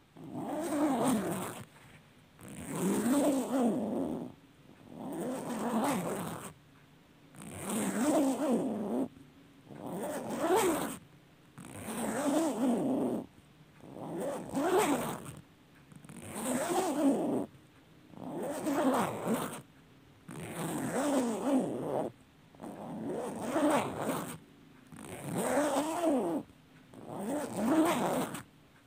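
A long zipper being pulled open and shut again and again, each pull a raspy stroke of about a second and a half, repeating roughly every two seconds.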